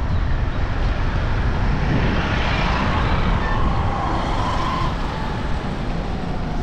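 Road traffic heard from a moving bicycle: a steady low wind rumble on the microphone, with a vehicle passing close that swells up through the middle and fades toward the end.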